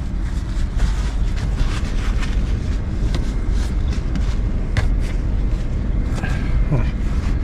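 Chevrolet Astro van's engine idling while the van warms up to thaw its iced-over windows, a steady low rumble, with a few brief clicks and a short squeak near the end.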